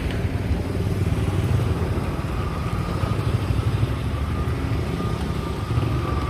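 Steady low rumble of a running motor vehicle engine, with a faint thin whine coming in about halfway through.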